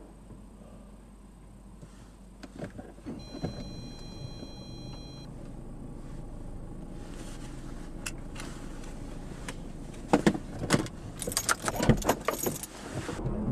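Inside a stopped car: a steady low rumble, with a short steady electronic beep tone a few seconds in. From about ten seconds in comes a burst of sharp clicks and rattles, the loudest sounds, like keys and cabin fittings being handled.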